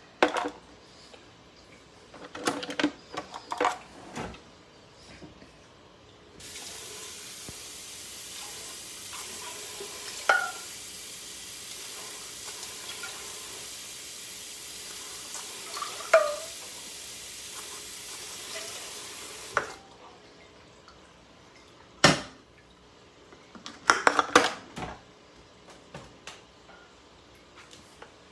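A kitchen tap running for about thirteen seconds in the middle, with clinks and clatter of pots and dishes before and after it.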